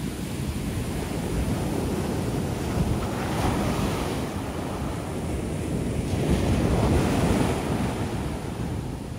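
Ocean shore break waves crashing and washing up the beach, swelling twice, about three and six seconds in. Wind buffets the microphone throughout with a low rumble.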